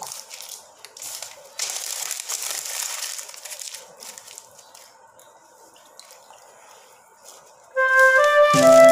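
Newspaper being crumpled and squeezed into a ball by hand, dipped in water, giving a crackling crinkle that is loudest in the first few seconds and then fades to a faint rustle. Background music with a melody comes in suddenly near the end, louder than the paper.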